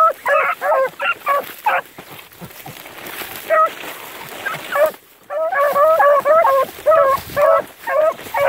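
Dogs yelping in quick, high, repeated barks. The barks thin out for a couple of seconds in the middle, then come thick and fast again.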